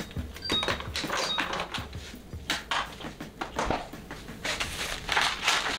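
Groceries being handled and put away: plastic bags crinkling, with knocks and clunks as items are set down on the counter and into the refrigerator, and a few short high beeps in the first second or so.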